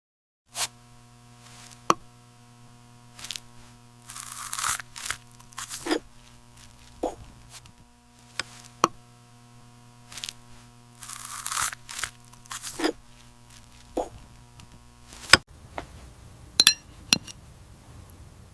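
Crunching and tearing of fruit, in two longer bursts and scattered sharp clicks, over a steady held music tone that stops about fifteen seconds in.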